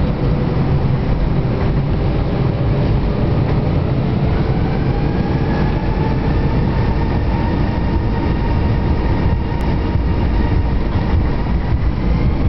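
Airbus A320 engines and rumble heard from inside the cabin while the airliner taxis onto the runway. A steady low rumble under a whining engine tone, which climbs slightly in pitch about four seconds in and then holds.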